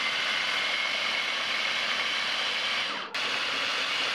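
Small electric mini food chopper running as it purées banana, a steady motor whir with a faint whine. It cuts out for a split second about three seconds in, then runs again.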